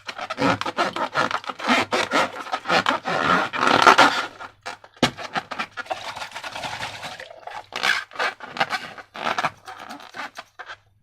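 Slime being squished and worked by hand, a dense run of sticky crackles and small pops. It thins out to scattered clicks after about five seconds and stops shortly before the end.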